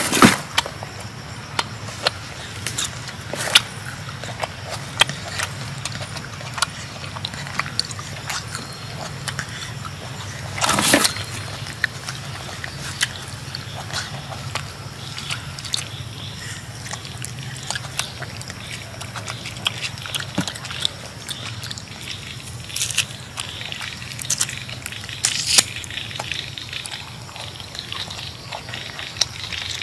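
A long-tailed macaque eating a red fruit close to the microphone: many short wet smacks and crunchy clicks of chewing and handling the husk, with louder rustling bumps at the start and about eleven seconds in.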